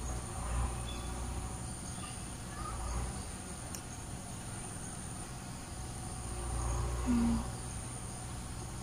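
Steady high-pitched chirring of insects in the garden, with a low rumble underneath. A short low hum comes about seven seconds in.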